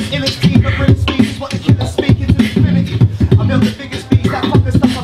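Beatboxer performing into a cupped handheld microphone, amplified: a steady beat of vocal kick-drum and snare sounds with hummed bass notes and vocal tones woven between the hits.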